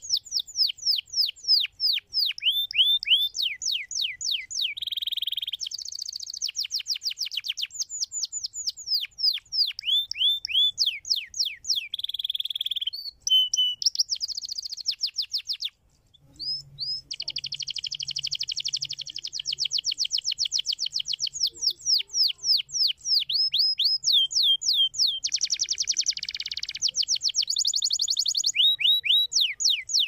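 Domestic canary singing a long, rapid song: fast runs of repeated downward-sweeping whistled notes, alternating with quick trills and buzzy rolls. There is a brief break in the song about halfway through.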